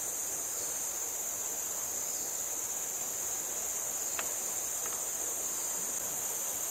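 Steady high-pitched insect chorus droning without a break, with one faint click about four seconds in.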